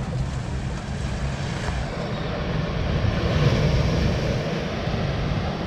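Wind buffeting the microphone over small waves washing onto a sandy beach, with a wash swelling about three seconds in.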